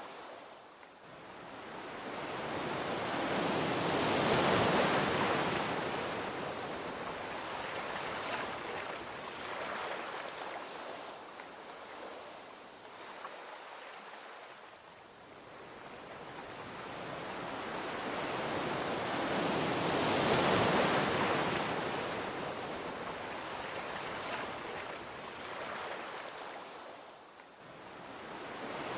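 Gentle ocean waves breaking and washing up a beach. Two slow swells of surf rise and fall, the first peaking about five seconds in and the second about two-thirds of the way through, with quieter lulls between them.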